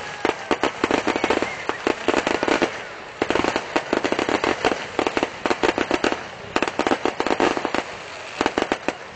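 Aerial fireworks crackling: rapid volleys of sharp cracks and pops in dense clusters, with brief lulls between them.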